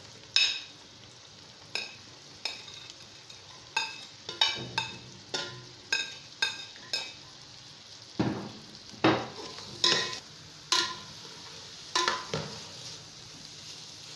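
Metal spoon knocking and scraping against a plate and an aluminium pot as diced watermelon rind is pushed into hot oil and stirred: about fifteen sharp, irregular clacks, with longer scrapes around the middle. Under them, a steady frying sizzle.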